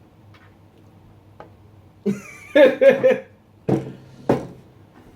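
A person's short vocal sounds, a few quick bursts between about two and four and a half seconds in, over a low steady hum.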